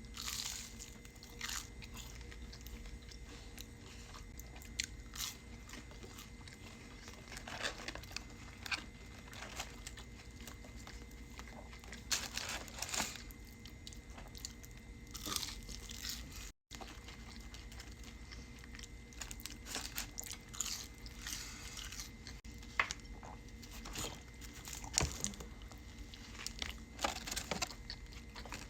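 Close-miked biting and chewing of crunchy McDonald's food, with irregular loud crunches between quieter chewing.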